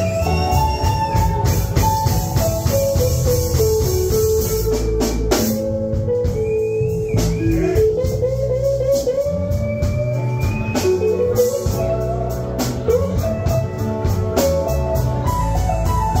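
A live blues band with an electric guitar solo: a melody of held, bent notes sliding up and down over bass and drums.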